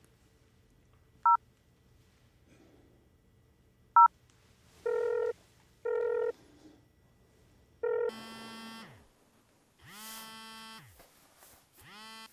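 Mobile phone call being placed: two single touch-tone keypad beeps, then a few short electronic ringing tones, then the called mobile phone's ringtone sounding in three pulses, each falling in pitch as it ends.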